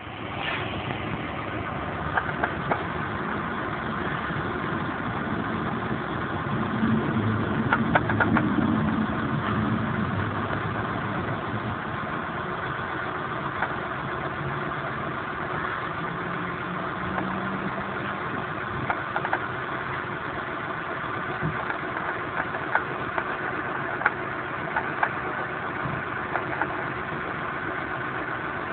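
Car engine idling, with short sharp knocks at irregular intervals over the running noise, which the owner puts down to a knock in the gearbox. The engine picks up slightly for a few seconds about a quarter of the way in.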